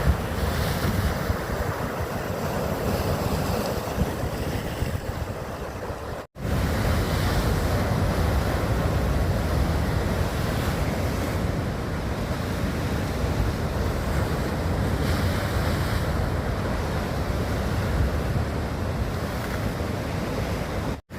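Sea waves washing and wind rumbling on the microphone, a steady noise with no distinct events. It drops out for an instant about six seconds in, as at a cut, and again just before the end.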